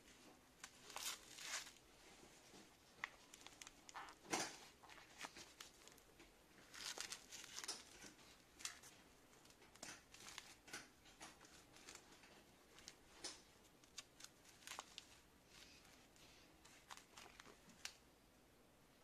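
Hook-and-loop wrist straps on leather gloves being pulled open and pressed shut, with the glove's leather and fabric rustling as it is handled: a string of short rips and rustles, the loudest about four seconds in.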